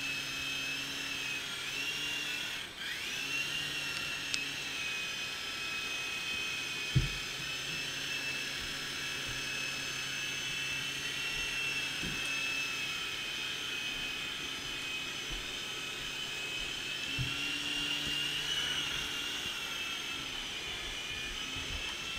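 Radio-controlled model helicopter's motor and rotor running with a steady high-pitched whine, the pitch dipping briefly and climbing back about two and a half seconds in. A few short knocks, the loudest about seven seconds in.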